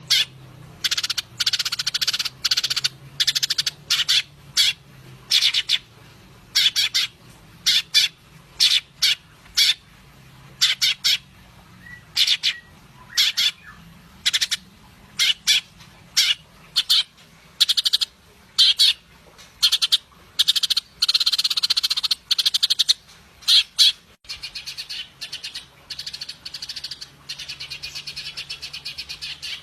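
A cungko songbird calling vigorously in a long series of short, harsh, buzzy notes, about one to two a second. Near the end the notes become quieter and run together more closely. A faint low hum lies underneath.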